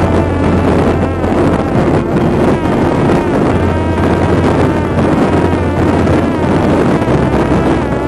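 A Parrot Disco fixed-wing drone's electric motor and propeller whine steadily, the pitch wavering up and down. Heavy wind noise buffets the onboard microphone.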